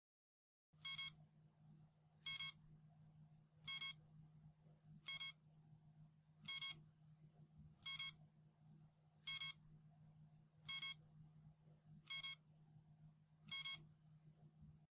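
Countdown timer's finishing alarm: a short, high-pitched alarm burst repeated about every second and a half, ten times, starting about a second in, over a faint steady low hum.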